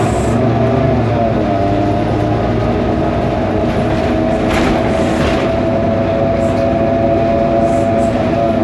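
Cummins ISBe turbo diesel of a 2012 BMC Belde city bus running under way, with a steady high-pitched whine over the drivetrain rumble, heard from inside the cabin. The title calls it a faulty engine sound.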